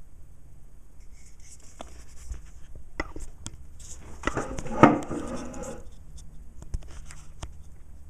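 Clicks and light scraping from handling a metal espresso portafilter filled with ground coffee, with a short noisier stretch and one sharp click about five seconds in.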